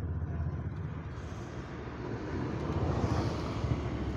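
A motor vehicle's engine running, a low rough rumble that grows louder toward the end.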